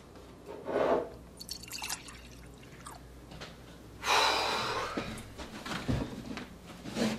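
Water running or splashing for about a second, about four seconds in, amid small knocks and clinks of handling.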